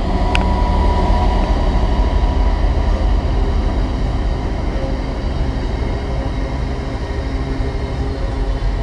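Diesel train running close alongside the platform, a steady low engine rumble.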